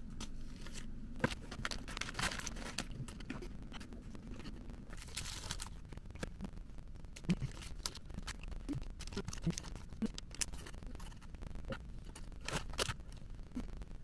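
Plastic wrapper of a rice-cracker packet crinkling and being torn open, followed by scattered light clicks and taps of handling.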